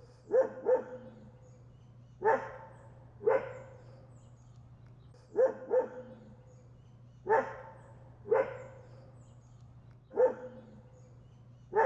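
A dog barking: about ten short barks, some in quick pairs, every second or two, over a steady low hum.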